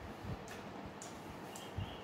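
Eating sounds: a few soft mouth smacks and small clicks as seafood is picked up and eaten by hand, over a steady faint hiss.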